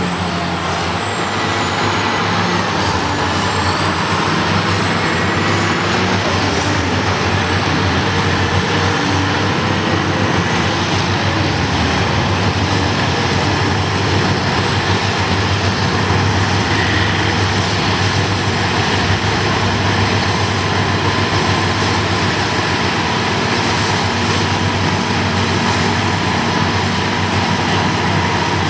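Caterpillar 657 twin-engine wheel tractor-scrapers' diesel engines running under work, a steady heavy drone. In the first few seconds a higher whine bends up and down.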